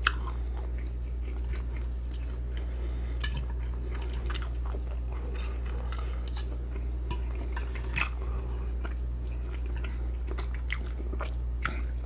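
Close-up chewing and biting of pork and vegetable stew, with scattered short, sharp mouth and utensil clicks over a steady low hum.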